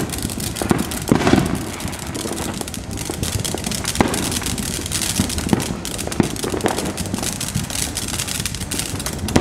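A ground fountain firework spraying sparks: a steady crackling hiss, dense with small pops and broken by an occasional louder bang from other fireworks going off.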